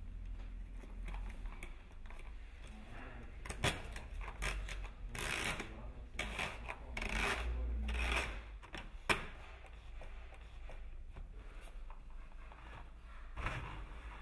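Hands working a corrugated plastic conduit and a heating cable's lead: irregular rustling and rubbing scrapes, with two sharp clicks about four and nine seconds in, over a steady low rumble.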